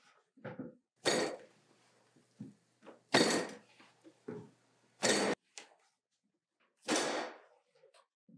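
A mound of minced meat for lula kebab being lifted and slapped down hard into a plastic bowl, four heavy slaps about two seconds apart with soft handling noises between. It is being beaten firmly to make the mince hold together.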